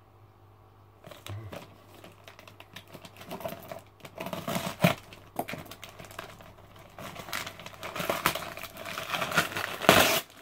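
Parcel tape and brown paper wrapping being picked at, crinkled and torn open by hand: irregular crackling that grows denser and louder, with a loud tear near the end.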